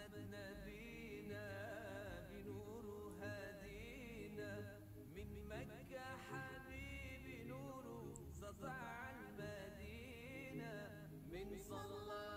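Faint background music with a singing voice, running without a break.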